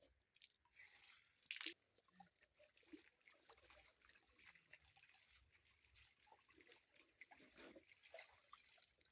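Faint water sounds from hand-washing clothes: small drips and splashes, with one brief louder splash about a second and a half in.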